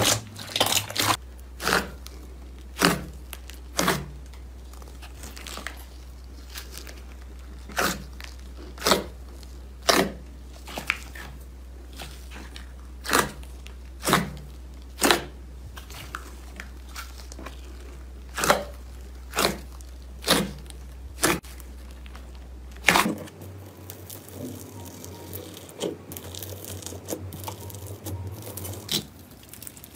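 Sharp, crisp cracks from crunchy ASMR material being pressed or broken, about one a second. About two-thirds of the way in they give way to denser, softer crinkling and crunching.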